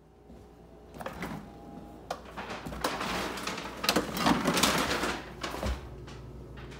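Stainless-steel double-door refrigerator being opened: a string of clicks and knocks with a rustling stretch in the middle as the doors come open. A steady low hum runs underneath.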